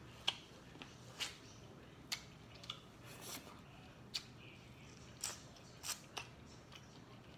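Close-miked eating sounds: about ten short, sharp, crisp crunches and snaps at irregular intervals, typical of biting and chewing in a mukbang.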